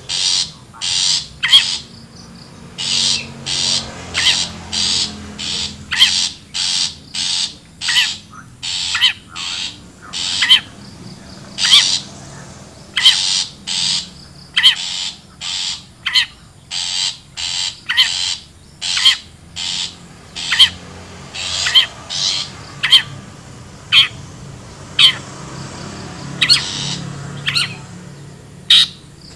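Long-tailed shrike (cendet) giving harsh, rasping calls over and over, about one or two a second and often in quick pairs: the wild shrike call used as a lure to draw other shrikes in.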